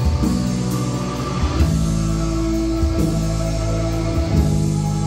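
A live rock band playing a progressive-metal cover on electric guitar, bass guitars and keyboard, with held chords moving to new notes about every second and a half.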